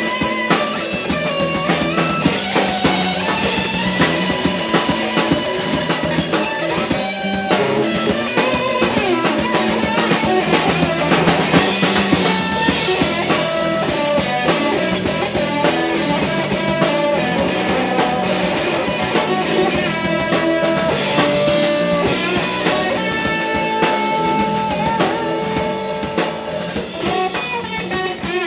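Live blues-rock trio playing: electric guitar, electric bass and drum kit.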